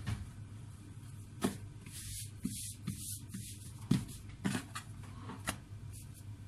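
Hands handling rolled-out pierogi dough on a stone countertop: soft taps and pats as the dough rounds are laid down and pressed flat, several times, over a low steady hum.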